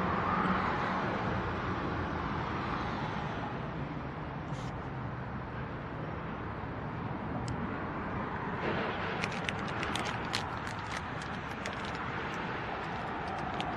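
Norfolk Southern freight train's boxcars rolling past: a steady rumble of wheels on rail, joined from about nine seconds in by a flurry of sharp clicks.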